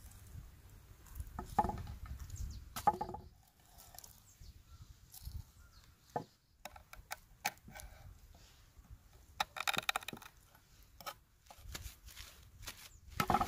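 Kitchen knife knocking and scraping on a wooden cutting board while a whole rockfish is cleaned, in irregular short strokes with a denser run about ten seconds in.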